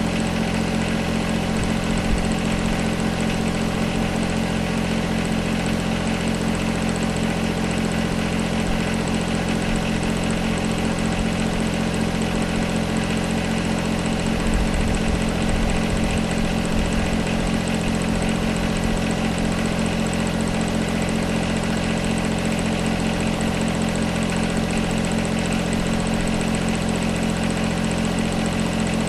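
John Deere 1025R compact tractor's three-cylinder diesel engine running steadily, with a few low thuds about halfway through.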